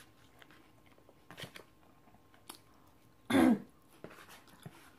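A person eating, with faint chewing and a soft click, then one short, loud cough a little past three seconds in.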